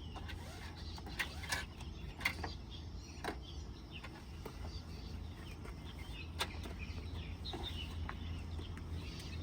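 Tie-down strap being threaded through its metal rings: scattered light clicks and knocks of the metal hardware and strap handling, over a steady low hum.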